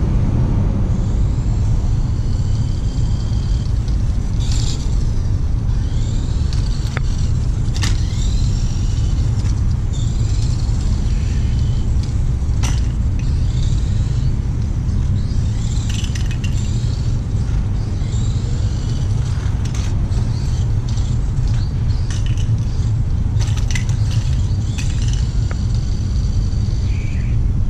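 Tamiya Dual Rider RC trike's small electric motor whining, the pitch rising and falling again and again as it speeds up and slows, with scattered sharp clicks. A loud steady low rumble lies under it all.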